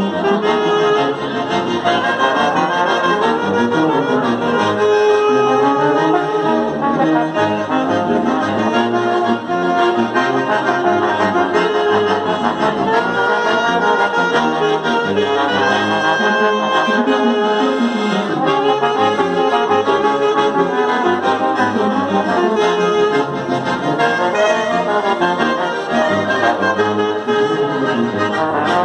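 A small ensemble plays a tune together: two accordions, clarinet, saxophone, trombone and tuba, with the trombone closest and most prominent.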